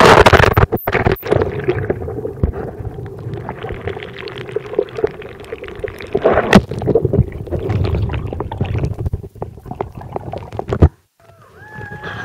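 A loud splash as the waterproof camcorder plunges into the sea, followed by muffled underwater bubbling and gurgling with scattered knocks, heard through the submerged camera. Near the end the sound cuts out briefly as the camera comes up into the open air.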